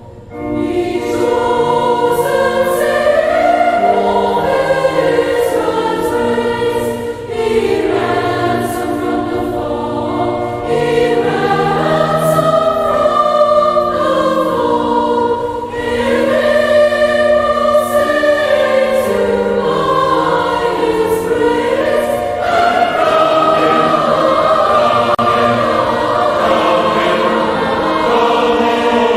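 A choir singing a slow piece in long held phrases, entering just after the start, with brief breaths between phrases.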